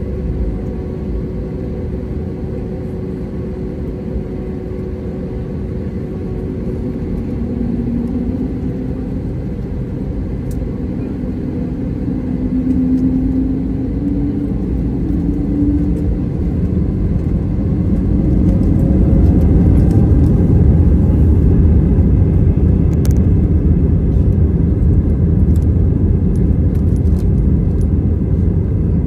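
Airbus A320neo's turbofan engines and airframe rumble heard from inside the passenger cabin. Partway through, an engine tone rises in pitch, and the rumble grows louder to a steady higher level, as the engines spool up.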